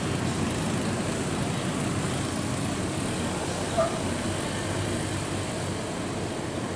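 Steady running of heavy diesel trucks, one of them a Hino dump truck moving slowly past. A short, sharp high blip sounds once about four seconds in.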